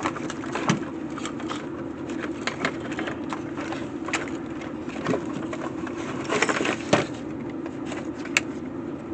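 Scattered clicks and clacks of hands handling an electric fence charger and its power-supply leads, irregular rather than in a steady rhythm, over a steady low hum.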